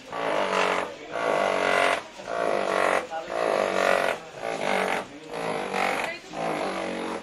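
Voices in short, evenly spaced sung phrases, about one a second.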